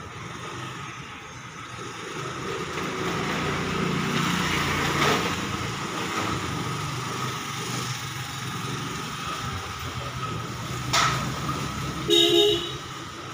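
A motor scooter rides past, its engine and road noise swelling and then fading, followed near the end by a short vehicle horn toot.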